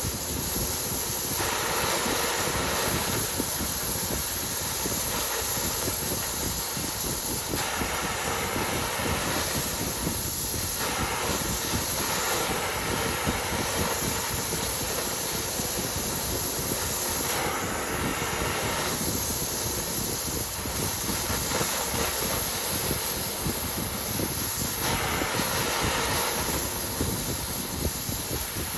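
Steady hissing noise from metal repair work on a cast iron pallet, changing in tone every few seconds.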